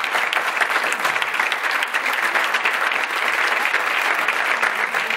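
Sustained applause from a concert audience, with the performers on stage clapping along: a dense, steady crackle of many hands clapping.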